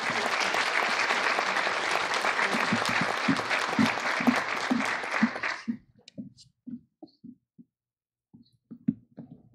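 Audience applauding for about six seconds, stopping suddenly, followed by a few faint knocks.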